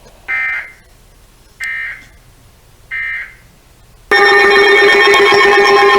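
Emergency Alert System broadcast: three short buzzy bursts of digital data tones, then about four seconds in a loud, steady, multi-pitch alert tone comes on.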